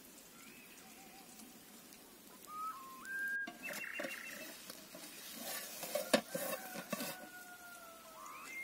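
Metal spatula scraping and knocking against a cast-iron pan as a baked pizza is worked loose and lifted out, with one sharp clank about six seconds in. Birds whistle in the background.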